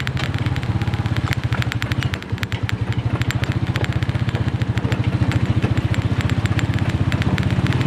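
A small motorcycle engine running steadily while riding, its rapid even exhaust pulsing mixed with rattling road noise; it eases briefly about two seconds in.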